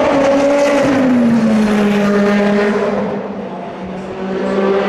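Honda-powered Super Formula SF23 race car, with a 2-litre turbocharged four-cylinder, passing and running away down the straight at speed. The engine note glides down in pitch from about a second in and fades a little in the second half.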